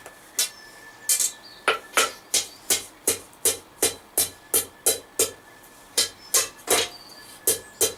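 Hand hammer striking a hot 10 mm square steel bar on an anvil, about three ringing blows a second with two short pauses, knocking the corners off a taper.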